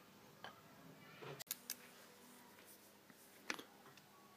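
A few faint, scattered metallic clicks of a ratchet wrench and tool on the cylinder barrel bolts as they are lightly snugged down by hand.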